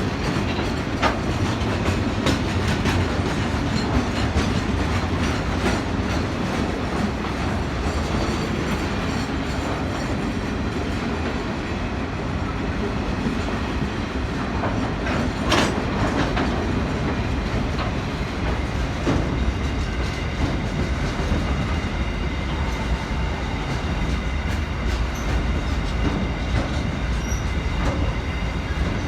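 Train rolling past, its wheels clicking steadily over the rail joints above a constant rumble, with a single sharp clank about halfway through and a faint high wheel squeal in the later part.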